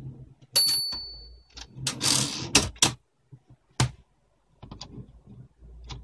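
UNIS tbm de luxe portable typewriter worked by hand at the carriage: a sharp clack with a short bright ring, like the margin bell, about half a second in. Then a rattling whir of the carriage sliding, ending in a couple of clacks, with another clack a second later and softer clicks near the end.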